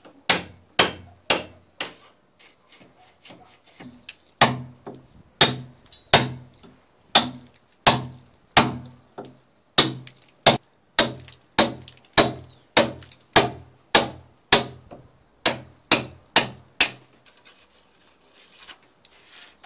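Hammer striking a chisel to chip a hole through a plastered masonry wall, about two blows a second. The blows go lighter for a couple of seconds early on, then pick up again and stop about three seconds before the end.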